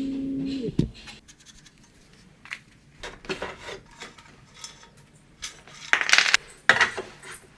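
Scraping and clicking of machine parts being handled and shifted, the loudest scrapes about six seconds in. A short steady hum sounds at the start and stops within the first second.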